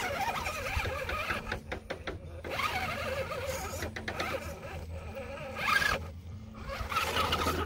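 RC rock crawler's brushed 540 motor and gear drivetrain whining in bursts under load as it climbs a slick wooden lattice ramp. It cuts out briefly about two seconds in and again around six seconds.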